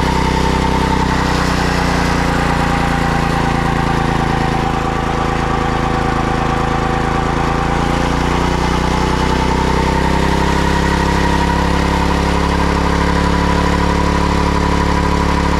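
An engine running steadily, with a steady whine over it that wavers slightly in pitch.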